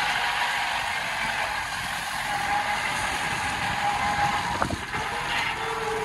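Off-road vehicle driving along a muddy dirt track: steady road and tyre noise with a short knock about two-thirds of the way through.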